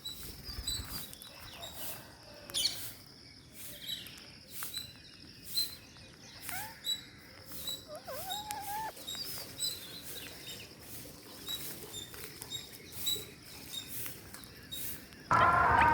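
Parrots giving short chirps and squeaks, with a few rising whistled calls and a run of faint sharp ticks. Near the end a much louder sound cuts in suddenly.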